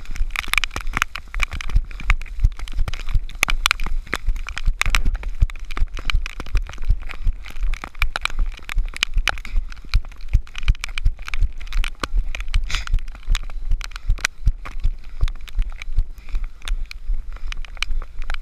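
Rain striking the action camera's housing, a dense, irregular crackle of drop hits, over low thumps and jolts from the wearer running on wet mud.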